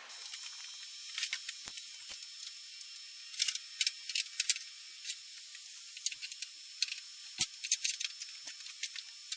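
Scattered light clicks and small rattles over a faint steady hiss, in clusters about a second in, around three and a half to four and a half seconds in, and again from about six seconds on, like parts being handled during machine adjustments.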